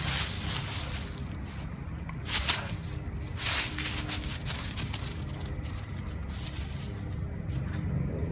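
Dry fallen leaves rustling and crunching underfoot in a few short bursts, the loudest about two and a half seconds in and another a second later, over a steady low rumble.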